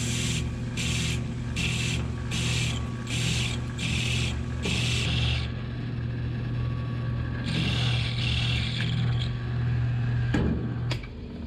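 Vertical milling machine spindle running steadily while cutting holes in an aluminium plate, with short hisses about twice a second for the first five seconds. A longer hiss of WD-40 being sprayed on the plate follows a few seconds later, and the spindle stops near the end.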